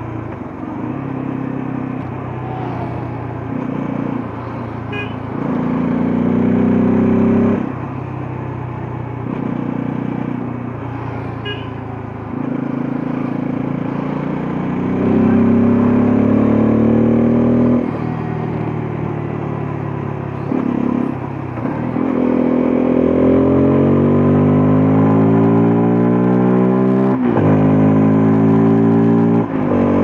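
Bajaj Pulsar F250's single-cylinder engine under way, accelerating through the gears. Its pitch climbs over several seconds, then drops abruptly at each gear change, about three times.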